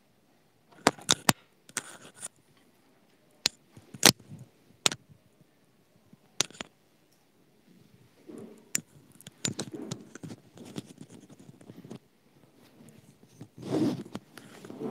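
A string of sharp clicks and knocks, then rustling and handling noise close to the microphone, as equipment is being handled and set up. There is a louder rustle near the end.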